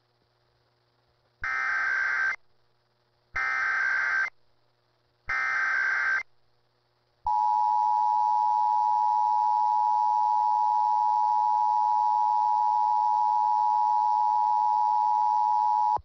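Emergency Alert System test signal over AM radio: three short bursts of screeching SAME header data about two seconds apart, then the two-tone attention signal, a steady dual-tone alarm held for about nine seconds.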